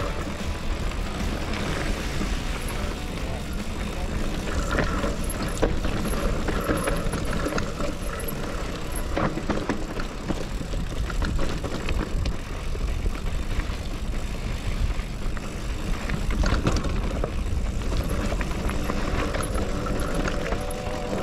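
Hardtail mountain bike descending a rocky dirt trail: wind rushing over the camera microphone, tyres rolling over dirt and loose rocks, and the frame and chain rattling, with scattered knocks over bumps.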